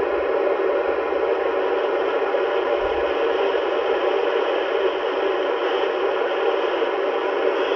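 Steady FM static (open-squelch hiss) from an amateur radio transceiver's speaker tuned to the ISS downlink near 437.8 MHz, with no station coming through.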